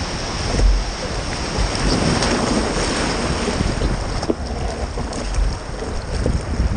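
Ocean surf washing onto the beach, with wind buffeting the microphone in low rumbling gusts; the wash swells about two seconds in.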